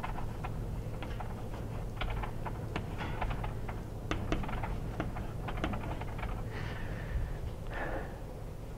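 Chalk tapping and scratching on a blackboard in short, irregular strokes as someone writes, over a steady low hum.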